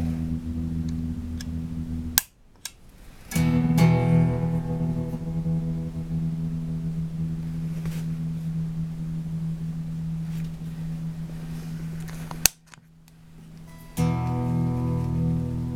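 Electric guitar chords ringing through a random tremolo pedal, sustained with an uneven, flickering level. The sound cuts out abruptly twice with a sharp click, about two seconds in and again about twelve seconds in, and stays nearly silent for a second or so each time before fresh chords come in.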